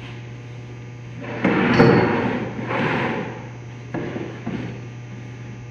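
Cut board panels being handled and laid together on a saw-guide table to test a mitre joint: two stretches of sliding and scraping with a knock, then two sharp knocks of board on board, over a steady low hum.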